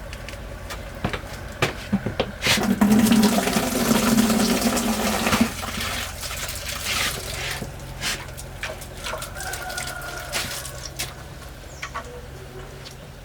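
Liquid pouring into a container, loudest for about four seconds starting two and a half seconds in, with scattered clinks and knocks of kitchenware.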